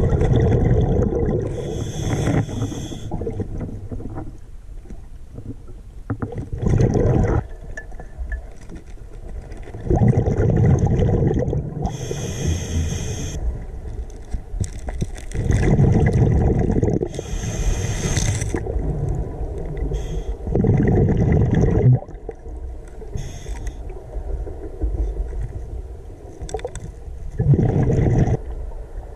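Scuba diver breathing through a regulator underwater: short hissing inhales alternating with longer bubbling exhales, about one breath every five seconds.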